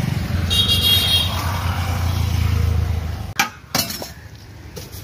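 A motor vehicle engine running with a low steady hum that fades out a little after three seconds in, with a brief high-pitched tone about half a second in. Two sharp clinks of metal utensils come about three and a half seconds in.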